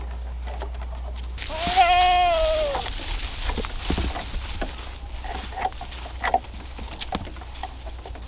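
A goat bleats once in a long call that drops in pitch at the end. Scattered light knocks and rustles follow.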